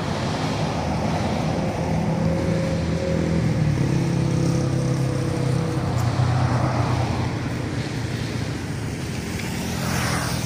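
Road traffic on a multi-lane road: cars passing with engine and tyre noise, an engine hum strongest in the middle, and a motorcycle passing close near the end.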